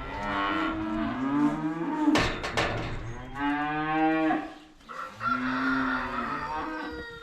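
Dairy cows mooing: three long moos, one after another, with a sharp knock about two seconds in.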